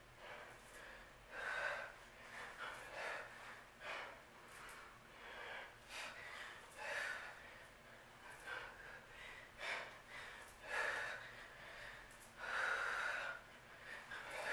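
A woman breathing hard from exertion during a dumbbell workout, pushing out noisy exhales roughly once a second.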